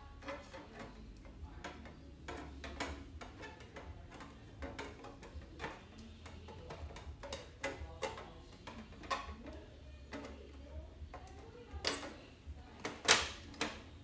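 Irregular light clicks and taps of clear acrylic panels being handled and fitted together, with a sharper, louder click near the end.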